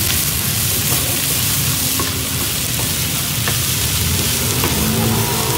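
Chopped meat and onions sizzling steadily in a hot frying pan as a wooden spatula stirs and scrapes them, with a few light clicks of the spatula against the pan.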